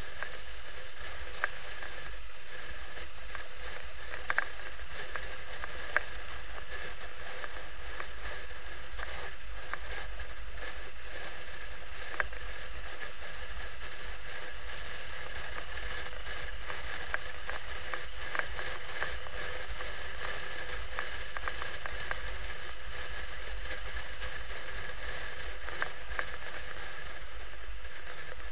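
Motorcycle riding at road speed, heard from a camera mounted on the bike: steady wind and road noise with a low rumble. A few sharp clicks break through, the loudest about six seconds in.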